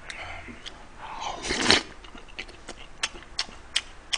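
Close-miked eating of a spoonful of seafood fried rice with black bean sauce: a loud mouthful about one and a half seconds in, then chewing with sharp mouth clicks about three a second near the end.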